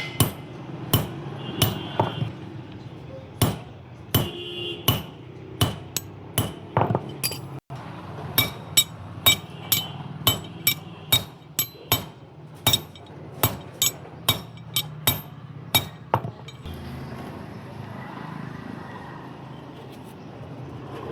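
A hammer striking steel repeatedly, about two blows a second, some blows with a bright metallic ring. The blows stop about sixteen seconds in, leaving a steady background noise.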